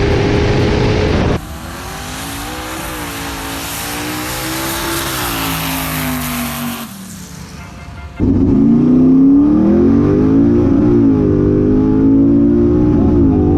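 Drag-racing car engines at high revs, in segments that cut abruptly. A steady full-throttle run gives way to engine pitch rising and falling under a high hiss, then a loud engine revving up and down.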